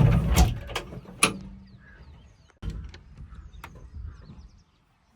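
Backhoe loader's diesel engine running with a low rumble, with several sharp metallic clanks, most in the first second and one more later on; the sound cuts out briefly just before the end.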